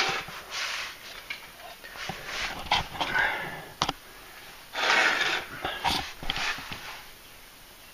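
Irregular breathy exhalations with scuffing and handling noise as a person works himself into position under a truck, with a sharp click a little before the middle.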